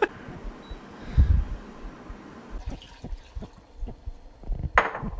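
Liquid poured from a bottle into a small steel saucepan, a steady pouring sound for a couple of seconds that fades out, with a dull thump about a second in. Light knocks of handling follow, and a brief hiss near the end.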